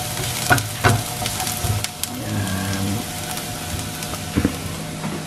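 Chopped onion and garlic sizzling steadily in a frying pan as they are sautéed, with a spatula knocking against the pan a few times while stirring.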